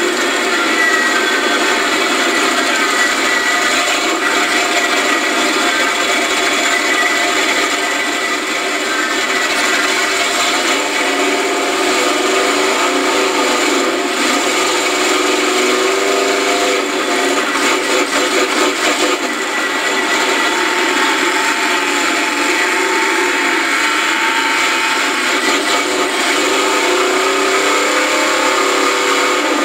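4x4 mud race truck's engine running hard at high revs, heard from inside the roll-caged cab, its pitch rising and falling as the throttle works.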